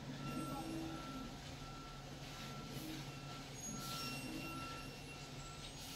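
A vehicle's reversing alarm beeping, one single-pitched beep repeating at an even pace a little faster than once a second, over the steady low hum of an engine running.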